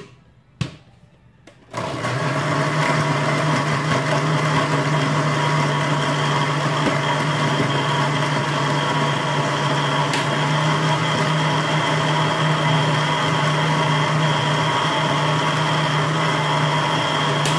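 Electric countertop blender: a click, then about two seconds in the motor starts and runs steadily at one speed, blending cooked oats, bananas, nuts and a little water into a smoothie.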